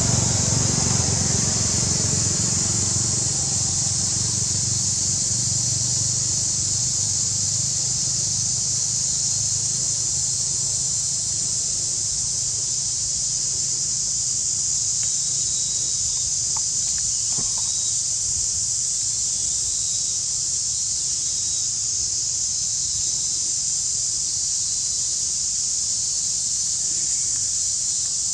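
A steady, high-pitched chorus of insects droning without a break, over a low rumble.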